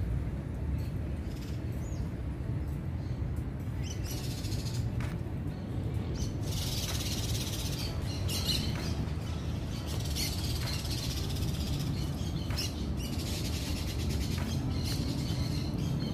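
Birds chirping and chattering in intermittent bursts from about four seconds in, over a steady low rumble.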